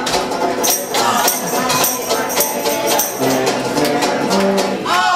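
A small band of banjo and tuba starts playing about half a second in: strummed banjo with sharp rhythmic strikes, and from about three seconds in the tuba playing low bass notes that step in pitch.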